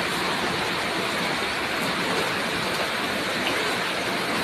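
Heavy rain pouring down with floodwater rushing through the street: a steady, dense hiss of water.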